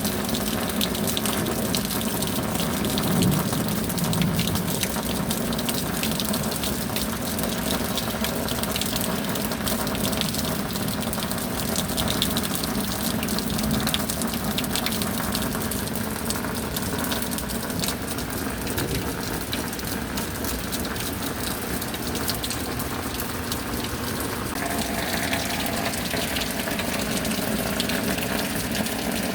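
Steady rain falling: an even, continuous hiss of countless drops, its tone shifting slightly about 25 seconds in.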